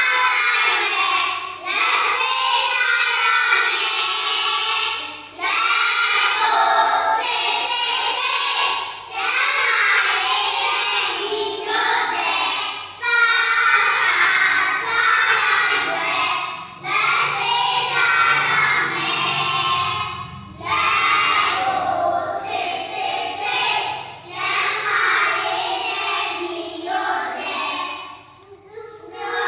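A group of young children singing a hand-washing song together in short phrases, with brief breaks between lines.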